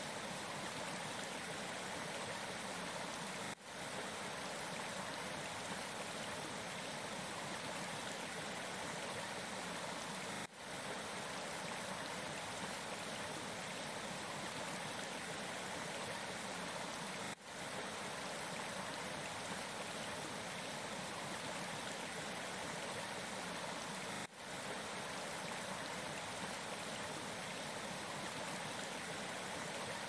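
Shallow stream running over stones and around mossy rocks, a steady rush of water. The sound dips briefly about every seven seconds.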